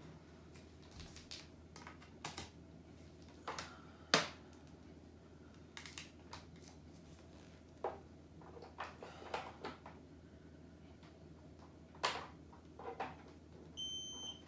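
Scattered light clicks and knocks of a plastic air purifier and its power cord being handled. Near the end comes one short high electronic beep, as the Xiaomi Mi Air 2S purifier is plugged in.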